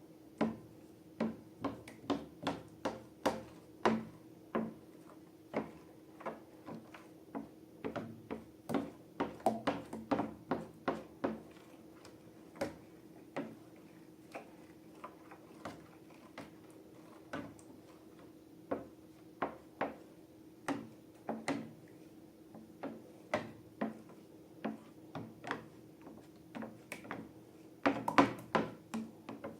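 Slime being squished and worked by hand, giving irregular sticky clicks and pops, several a second at times, with a louder cluster near the end. A faint steady hum runs underneath.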